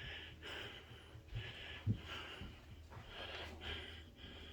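A man breathing heavily right against the microphone, quick puffing breaths in and out, with a short thump about two seconds in.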